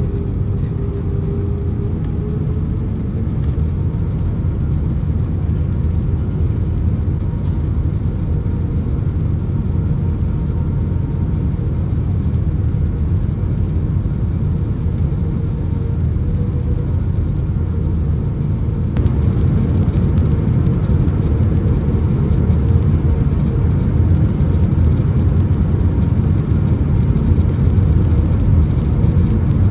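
Steady engine and airflow rumble inside the cabin of an Airbus A319 airliner in flight, with a faint steady hum above it; the noise grows a little louder about two-thirds of the way through.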